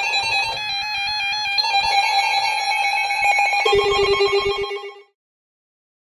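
A fast electronic melody of beeping tones that step quickly between pitches, with a lower tone joining near the end, cutting off suddenly about five seconds in.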